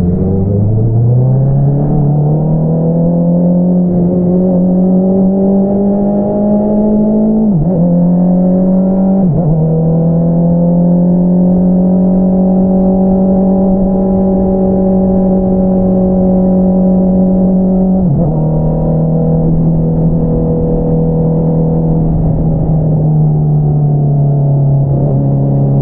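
A 2022 Honda CBR650R's inline-four through an Akrapovič single-outlet exhaust, heard from the rider's seat while riding. It revs up over the first several seconds, with quick dips in pitch for two gear changes. It then holds a steady engine note, and drops to a lower pitch twice near the end.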